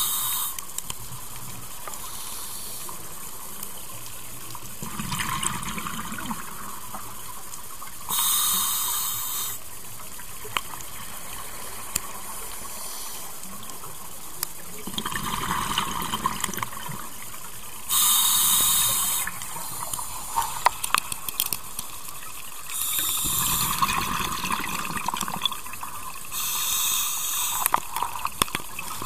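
Water rushing and splashing around a moving rigid inflatable boat, with louder surges of splash now and then.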